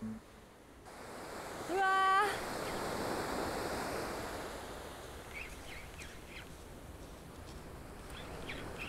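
Small waves breaking and washing up a sandy beach: a steady surf wash that swells about two seconds in and then slowly eases off. About two seconds in, a short rising voiced call is heard once.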